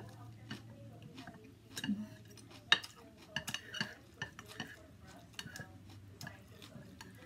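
Chopsticks and a spoon clicking and scraping against a plate while stirring through noodles and bean sprouts: a string of light, irregular clicks, the loudest nearly three seconds in.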